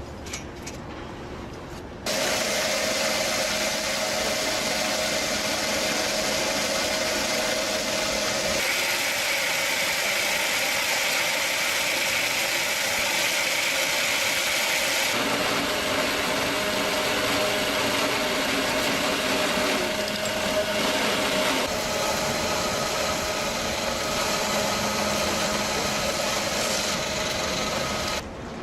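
Wood-processing machinery running loudly and steadily, a dense mechanical noise with a constant hum. It starts abruptly about two seconds in, changes character suddenly three times, and cuts off just before the end.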